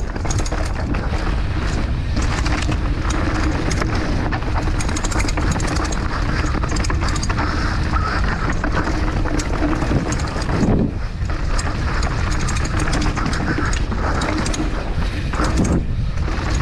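NS Fuzz 29 downhill mountain bike descending at speed, heard from a camera mounted on the bike: tyres rolling over dirt and loose stones, with constant rattling from the bike and wind noise on the microphone. The noise dips briefly about two-thirds of the way through.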